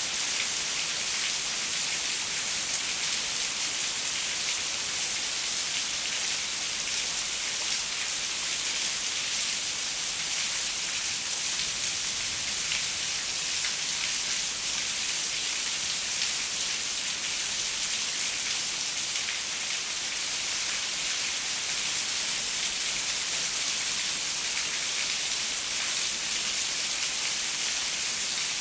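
Steady rain falling, a dense even hiss with fine patter of drops, heaviest in the high range and without thunder.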